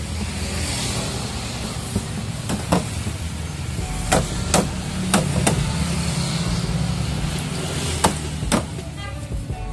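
Hollow plastic parts of a children's slide knocking and clacking as they are handled and fitted together: about seven sharp knocks through the middle, over a steady low rumble.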